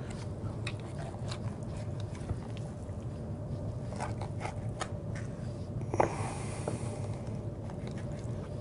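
Knife working through a raw duck at the leg and thigh joint: faint wet clicks and scrapes of blade on meat and bone over a steady room hum, with one louder click about six seconds in.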